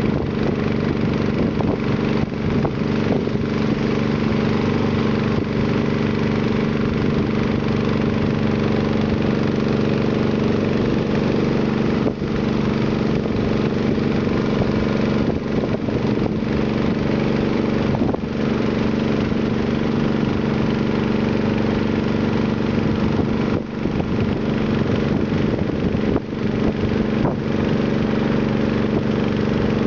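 Small river boat's engine running steadily under way, a continuous even drone.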